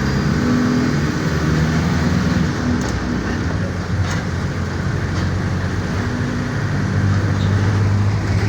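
Mercedes-Benz OF-1418 bus's diesel engine running under way, its note shifting and settling lower near the end, with a few faint rattles.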